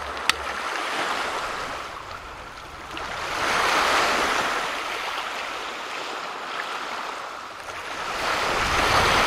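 Small lake waves washing in, a steady rush that swells twice, about four seconds in and again near the end, with a single sharp click just after the start.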